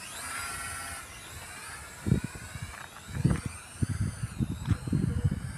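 E88 Pro quadcopter drone's propellers whining as it flies off after take-off, the whine's pitch sliding up and down. From about two seconds in there are loud, irregular low rumbling thumps.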